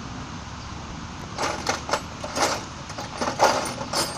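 Metal hand tools (sockets and wrenches) clinking and clattering as they are handled and swapped: a run of sharp, irregular metallic clinks that starts about a second and a half in, over a low steady background hum.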